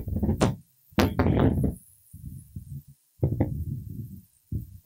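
Microphone handling noise: a series of low thumps, knocks and rubbing as a microphone on a stand is moved and adjusted.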